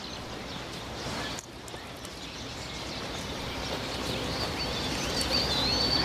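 Outdoor ambience: small birds chirping over a steady background hiss that slowly grows louder.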